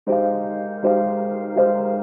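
Soft background music: piano-like chords struck about every three quarters of a second over a held low note.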